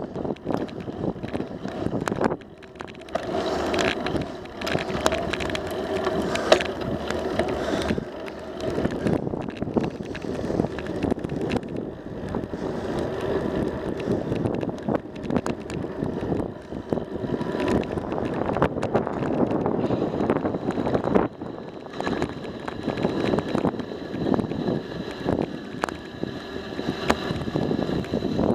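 Bicycle ridden on a paved trail: steady tyre noise on asphalt with frequent clicks and rattles from the bike, and wind on the microphone.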